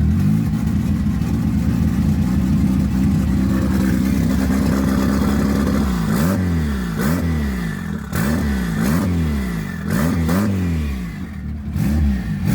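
Turbocharged Honda Accord four-cylinder on E85, just cold-started and running rich, idling steadily, then blipped about eight times in quick short revs that rise and fall from about six seconds in.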